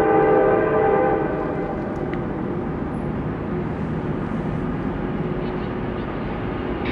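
CSX freight train's locomotive horn, ending about a second in, followed by the steady rumble of the train rolling through the grade crossing.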